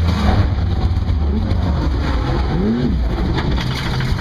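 Car running, heard from inside the cabin: a steady low engine and road rumble with a brief rising-and-falling tone about three seconds in.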